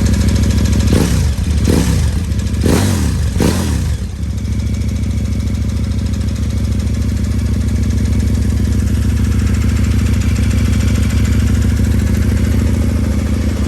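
KTM 1290 Super Adventure's V-twin engine running through a newly fitted Akrapovic slip-on exhaust, a little throatier than stock: four quick throttle blips in the first few seconds, then a steady idle as it warms the oil.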